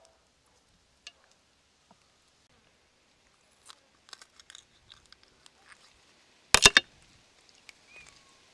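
Hands handling and pulling apart raw quail carcasses: scattered soft wet clicks and tearing. About six and a half seconds in comes a short, loud crunch of several quick snaps.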